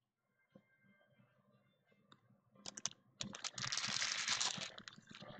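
Trading-card pack being handled: after a quiet start, a few clicks, then dense, rapid crinkling and crackling of the pack's foil wrapper and cards from about three seconds in.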